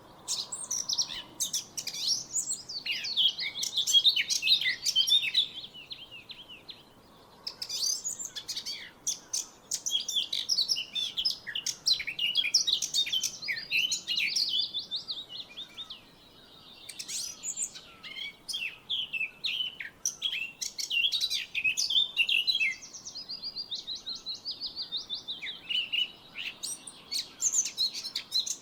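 Songbird singing long runs of quick, high chirping and twittering notes, broken by a couple of short pauses.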